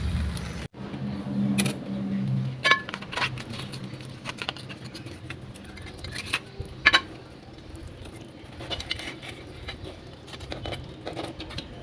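Scattered light clicks and clinks of a wire grill basket and a plastic spatula knocking against a plate as a grilled fish is worked off the grill rack onto the plate.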